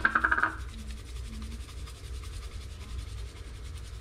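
Spice shaker shaken over raw fish fillets: a quick, rapid rattle in the first half-second, then fainter, fast, steady shaking over a low hum.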